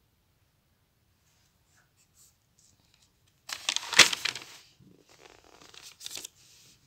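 A notebook page being turned: a loud paper rustle and flap about halfway through, followed by softer rustling for a couple of seconds.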